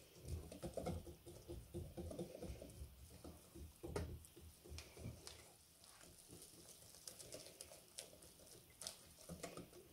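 Faint mixing of thick ricotta pancake batter in a bowl: soft, irregular wet slaps and scrapes, with a sharper click about four seconds in.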